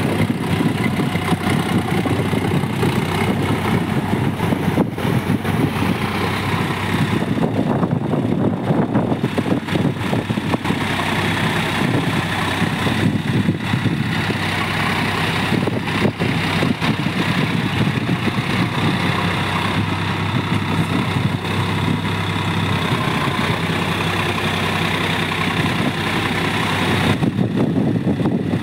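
Farm tractor's diesel engine running steadily as it pulls a rear-mounted rotary tiller through a flooded, muddy field.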